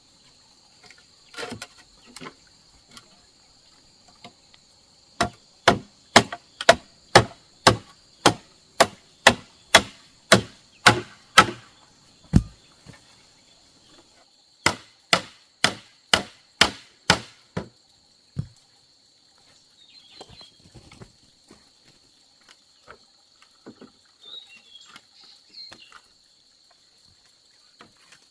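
Chopping with a blade, about three sharp strokes a second in two runs: a long one starting about five seconds in and a shorter one in the middle. Insects buzz steadily in the background.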